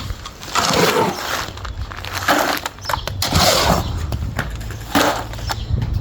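Several bursts of scraping and crunching from hands-on building work with cement and posts, over a steady low hum.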